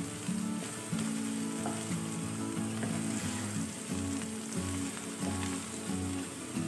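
Chopped onions sizzling steadily in oil in a nonstick frying pan as a wooden spatula stirs them; the onions are soft and the oil has begun to separate, cooked on a low-to-medium flame without browning. Soft background music plays underneath.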